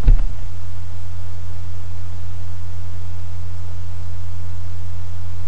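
Steady low hum with faint hiss: the recording's background noise. A brief low thump comes just after the start.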